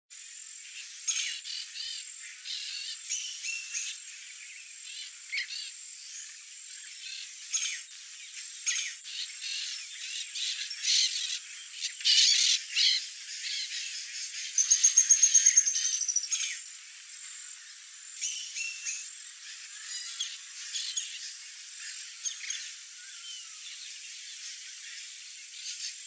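Wild birds calling: many short high chirps and calls scattered throughout, with a fast run of repeated high notes that falls slightly in pitch, lasting about a second and a half, a little past halfway through.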